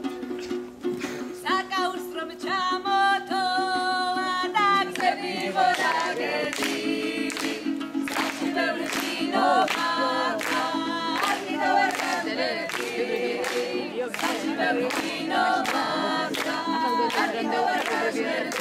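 A group of young voices singing a song together, accompanied by a panduri, a Georgian three-string lute, strummed in a steady rhythm.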